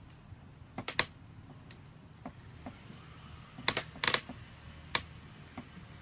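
Irregular sharp clicks and taps, about a dozen, in two small clusters about a second in and about four seconds in.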